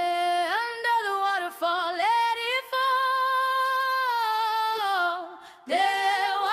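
A woman's voice singing a wordless melody with almost no accompaniment. She holds one long note through the middle, then pauses briefly near the end before singing again.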